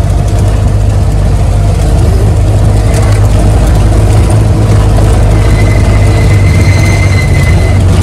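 Maruti Gypsy jeep's engine running steadily as it drives down a narrow, steep lane, a low hum throughout. A thin, steady high tone joins about five seconds in.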